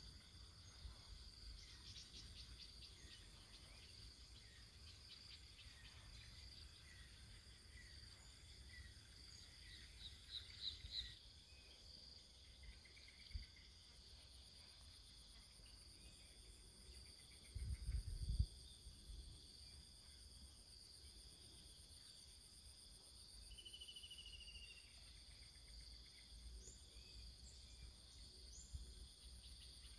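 Faint, steady chirring of an insect chorus, a constant high drone, with occasional short bird chirps and whistles. A brief low rumble against the microphone a little past halfway is the loudest moment.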